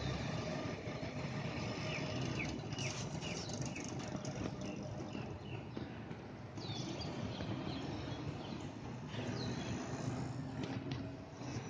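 Steady low rumble of distant city traffic, with birds chirping now and then over it in short, quick, falling calls.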